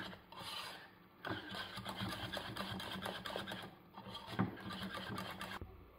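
Wire whisk beating thick orange curd in a small metal saucepan: a fast, continuous rattle of the wires scraping the pan, breaking off briefly about a second in and again near four seconds.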